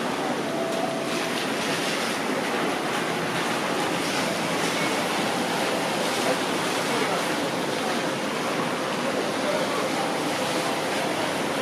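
Steady rushing noise beside a Hiroshima Electric Railway 1000-series low-floor tram standing at a covered station stop with its doors open: the even hum and hiss of the stationary tram and the busy stop around it.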